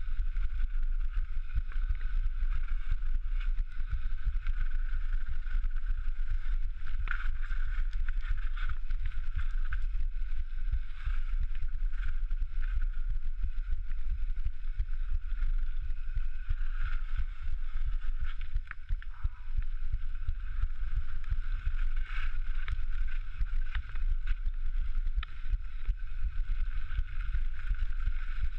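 Sound from a heartbeat microphone worn during a mountain-bike descent: a continuous low thudding rumble under a steady high-pitched hum, with no separate heartbeats standing out.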